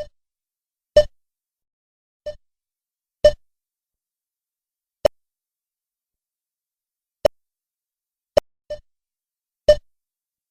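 Supermarket checkout barcode scanner beeping: nine short single beeps at uneven intervals, as items are scanned one after another, two of them close together near the end.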